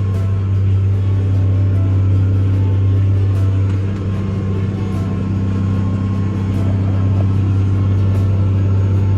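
Case MX285 tractor engine running steadily under load, a constant low drone heard inside the cab.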